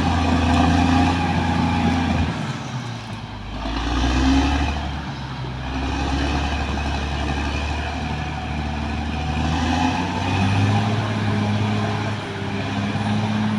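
Caterpillar D6R XL bulldozer's diesel engine running under working load, its engine note shifting down and up several times.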